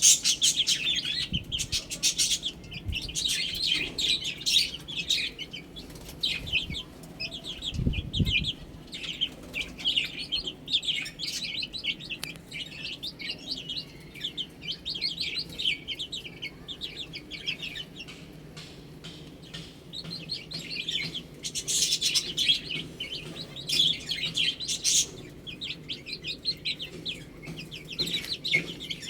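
Baby chicks chirping, with many short, high peeps following each other throughout. A dull thump comes about eight seconds in.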